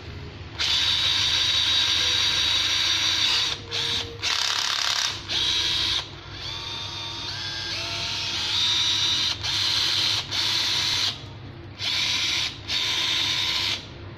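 Small 7.2 V cordless drill-driver's motor run on its trigger in a string of bursts, some short, some a few seconds long, with the direction switched between runs. Its high whine cuts in and out sharply. In one slower stretch near the middle its pitch climbs as the trigger is squeezed gradually.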